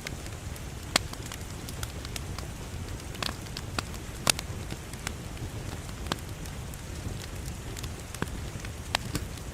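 Wood fire burning in a fireplace: a steady low rumble of flames with irregular sharp crackles and pops, the loudest about a second in, just past four seconds and near the end.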